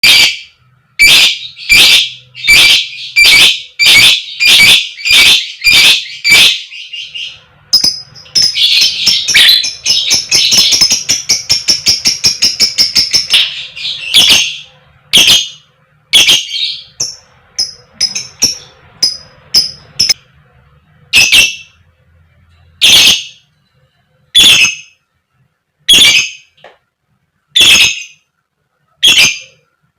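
Lovebird giving its loud, harsh 'koek koek' calls: first a steady run of about one and a half calls a second, then a rapid chattering trill from about 8 to 14 seconds in, then single calls spaced about a second and a half apart.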